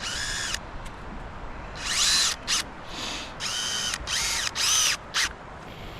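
Power drill run in about seven short trigger pulls, each spinning up and winding back down, as fasteners are driven to finish the job.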